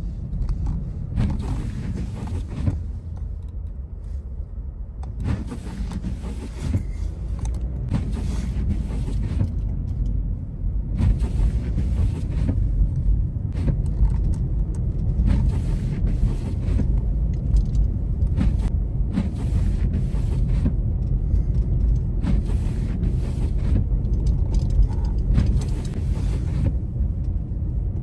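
Steady low rumble of a car's engine and tyres heard inside the cabin while driving, with scattered light knocks and clicks, a little louder about a third of the way in.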